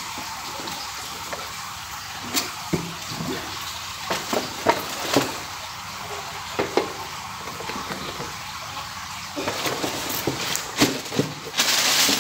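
Handling noise as a metal rack-mount audio processor is lifted out of its cardboard box and set down on a wooden board: scattered clicks and knocks, and a louder rustle near the end, over a steady hiss.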